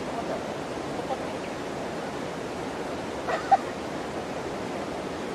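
Steady rushing of river water flowing, with one brief sharp sound about three and a half seconds in.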